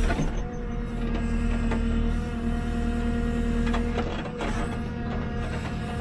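JCB 3CX backhoe loader's diesel engine running under load, with the hydraulics whining steadily as the backhoe arm digs and lifts a bucket of soil. The whine drops away about four seconds in, with a few knocks from the bucket and linkage.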